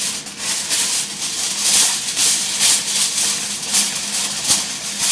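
Aluminum foil crinkling and rustling in irregular bursts as a long sheet is handled and rolled back up.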